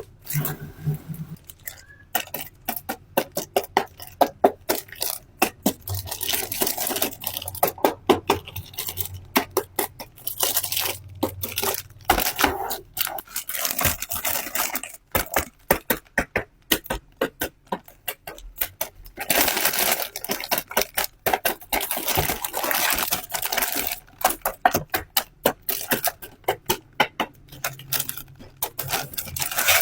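Toy packaging being handled and opened: cardboard and plastic wrapping tearing and crinkling, with many sharp clicks and taps and a few longer stretches of tearing.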